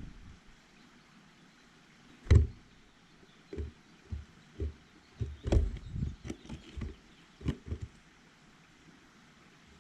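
Birds landing and pecking on a feeder close to the camera: a series of irregular knocks and taps. The loudest comes about two seconds in, with a cluster of them a little past the middle.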